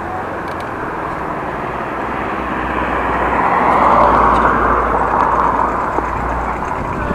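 Road traffic passing: the noise of a car swells to a peak about four seconds in and then fades, over steady background road noise.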